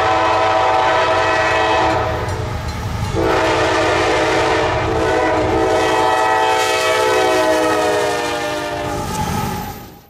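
Diesel locomotive air horn sounding a chord of several notes over the low rumble of the train. It eases off briefly about two to three seconds in, then sounds again in a long blast that fades out near the end.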